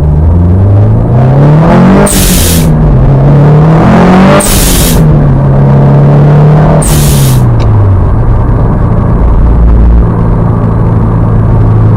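Subaru WRX STI's turbocharged flat-four pulling through three upshifts. At each shift there is a loud hissing whoosh as the Go Fast Bits Hybrid blow-off valve vents, set half recirculating and half to atmosphere. After the third shift the engine settles to a steady drone.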